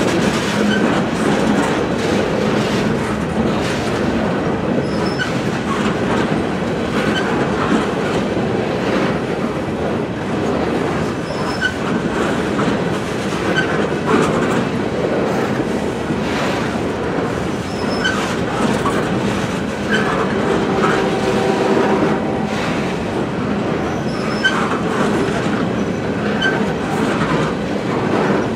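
Freight train of loaded flatcars rolling steadily past close by: continuous wheel-on-rail rumble with clicks of wheels over rail joints. A brief ringing wheel squeal comes about two-thirds of the way through.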